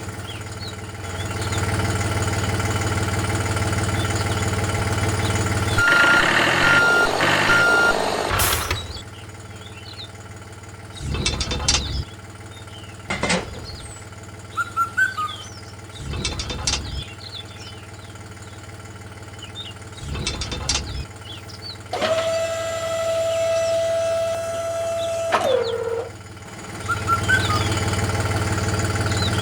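A small motor running with a steady low hum, cutting out and starting again in several short spurts. Partway through come a few short beeps, and later a held tone of a few seconds that drops in pitch as it stops.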